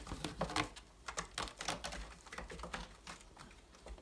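A cat's claws scratching and scrabbling on a cat tree's sisal-rope post and carpeted platform, a quick irregular run of scratches and light knocks.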